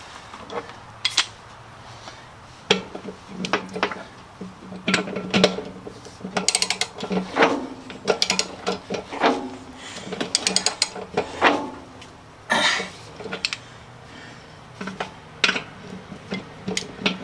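Irregular metallic clinks and clicks of a wrench on the bolts as the steel rim is bolted onto the Ford 8N tractor wheel.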